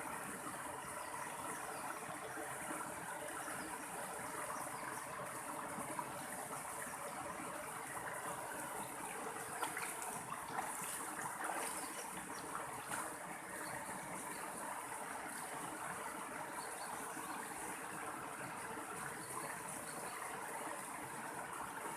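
Mountain stream water flowing and trickling steadily over rocks.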